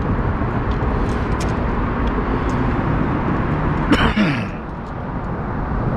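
Steady rushing noise with a low rumble, and a short falling vocal sound from a man about four seconds in.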